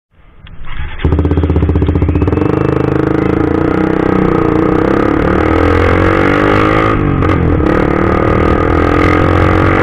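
Suzuki GSX-R150's single-cylinder engine running through an aftermarket CLDX Monster exhaust as the bike pulls away. The sound comes in loudly about a second in and the revs climb steadily. They drop briefly at a gear change about seven seconds in, then climb again.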